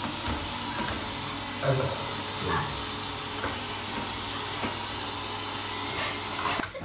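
Robot vacuum cleaner running steadily, a continuous hiss with a low hum, cutting off near the end.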